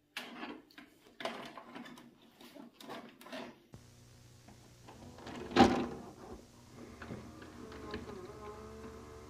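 A VHS cassette handled and pushed into a VCR: a few sharp clicks and knocks, then a steady hum, one loud clunk about halfway through as the machine takes the tape in, and the whir of its loading motor.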